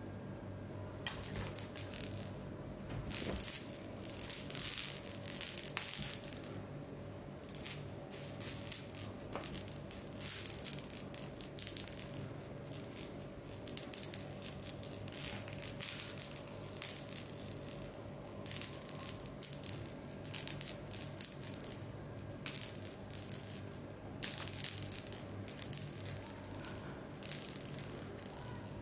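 Small rattle-ball cat toy being batted and rolled by cats, rattling in irregular bursts with short pauses between them.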